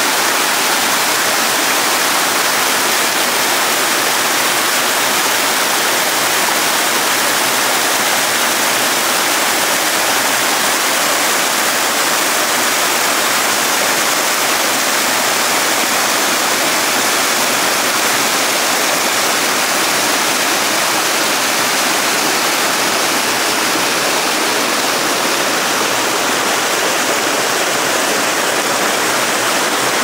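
Small waterfall pouring down a rock face and splashing into a pool and over rocks: a steady, even rush of falling water.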